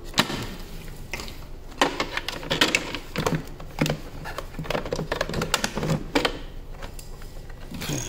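Irregular hard-plastic clicks and knocks from hands working the battery compartment and its cover on a Makita VC004GL cordless vacuum, with the motor switched off.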